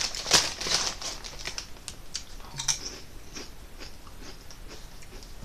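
Lay's potato chips crunching as a person bites and chews them: a quick run of sharp crackles in the first few seconds, thinning out to fainter chewing toward the end.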